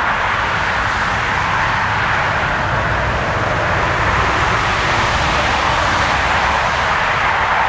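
Airbus A320neo's Pratt & Whitney geared turbofan engines running as the airliner rolls along the runway after landing: a steady rushing jet noise over a low rumble.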